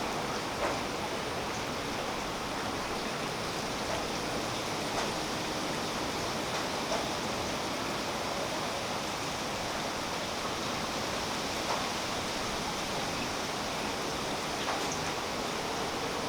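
Steady rain falling through the leaves of a tree: an even, dense hiss, with a few louder single drops now and then.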